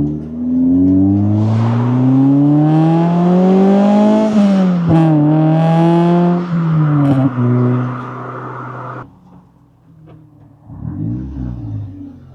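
Acura Integra four-cylinder engine revving. Its pitch climbs steadily for about four seconds, drops sharply and holds, then falls again and holds, before the sound cuts off abruptly about nine seconds in. A quieter engine swell rises and fades near the end.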